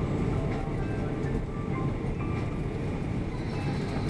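Steady deep rumble inside the cabin of an Airbus A340-600 speeding along the runway on landing: wheel, airflow and engine noise heard from a window seat over the wing.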